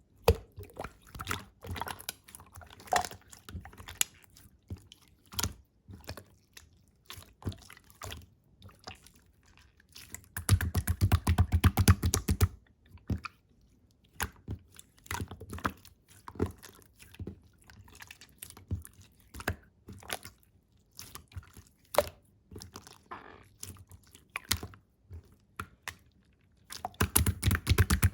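Clear slime being handled and squeezed: sticky, wet clicks and crackles, scattered, with two louder stretches of rapid squishing about ten seconds in and near the end.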